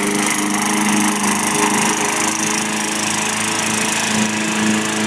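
Walk-behind gasoline lawn mower engine running at a steady, even pitch as the mower is pushed through the grass.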